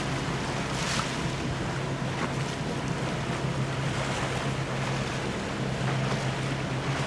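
Inboard engine of a Bayliner Classic with a 4.3 MerCruiser V6 sterndrive running at a steady cruise, a constant low drone. Wind buffets the microphone over the rush of water against the hull.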